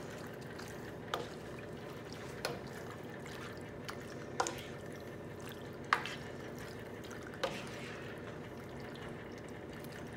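A spoon stirring penne pasta into tomato sauce in a skillet. There is soft wet stirring, and about five sharp knocks of the spoon against the pan, spaced out roughly every second and a half, over a steady low hiss.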